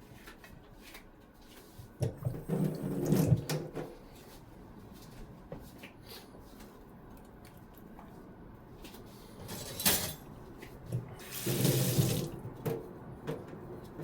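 Kitchen tap running briefly twice, water splashing into the sink, with a sharp click between the two runs.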